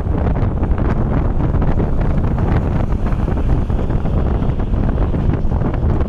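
Wind buffeting the microphone at the open window of a moving vehicle, over the steady low rumble of the vehicle driving along a concrete road.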